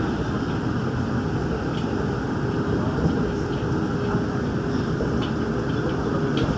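Cabin running noise of a Daegu Metro Line 3 straddle-beam monorail car travelling at a steady speed: an even rumble of rubber tyres on the concrete guideway with a faint steady whine and a few light ticks.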